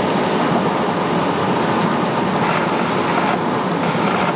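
Steady road and wind noise heard inside a car cabin driving at highway speed.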